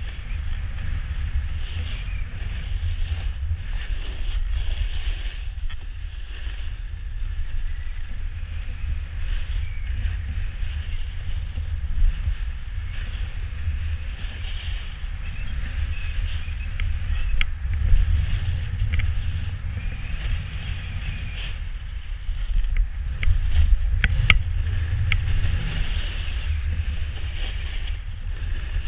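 Snowboard sliding and carving over snow, a hissing scrape that swells and fades with each turn, over a steady low rumble of wind on the camera microphone. A few sharp clicks come through late on.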